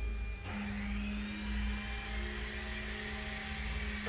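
An electric motor starting about half a second in and spinning up to a steady whir, its pitch climbing for about a second and then holding, over a steady low hum.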